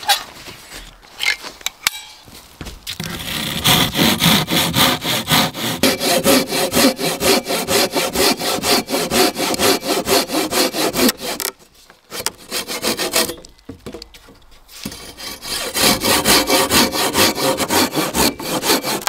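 Hand saw cutting through round wooden poles with steady back-and-forth strokes. The sawing stops for a few seconds about two-thirds of the way through, then starts again. It is preceded by a few seconds of rustling and light knocks as the saw is taken out.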